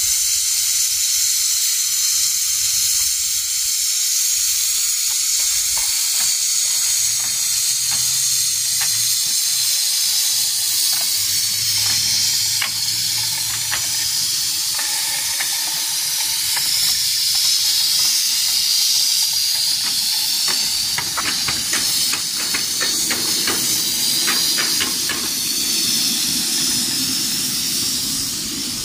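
Coal-fired live-steam locomotive hissing loudly and steadily with escaping steam. A run of quick light clicks joins in during the last third.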